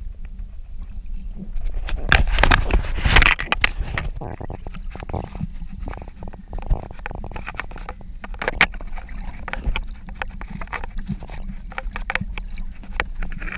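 Muffled underwater water noise picked up through a submerged action camera's housing: a low rumble with irregular crackling and bubbling, and a louder surge of water movement about two to three seconds in.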